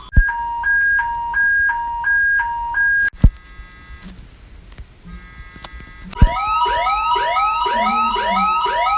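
Emergency alert attention tones. A loud two-note high-low alternation repeats about four times and cuts off sharply at about three seconds. After a quieter stretch with faint tones, a second alert starts about six seconds in: two alternating notes with sweeping rising and falling tones layered over them.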